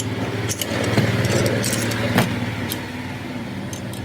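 An engine running, its hum swelling louder after about a second and easing off again, with a few sharp metallic clicks.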